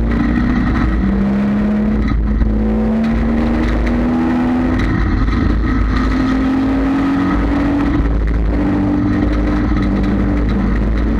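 Dirt-track stock car's engine heard from inside the cockpit while racing, its pitch climbing steadily for several seconds, easing briefly near the middle, then climbing again and settling, over a heavy low rumble.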